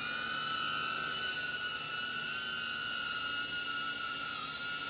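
DJI Avata FPV drone on its stock propellers, the motors running as it lifts off and hovers: a steady high whine over a hiss.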